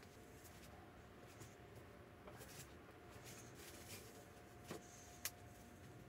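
Near silence with faint handling of pallet-wood boards on cardboard: a few light clicks, then two short knocks near the end, the second the sharper. A faint steady hum sits underneath.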